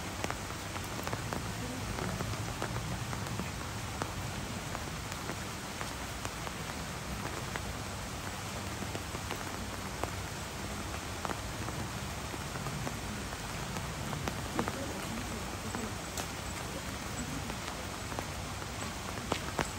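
Steady rain falling on hard surfaces: an even hiss with scattered sharp drop ticks.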